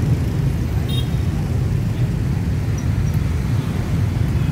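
Steady, dense rumble of heavy rush-hour motorbike and scooter traffic passing close by.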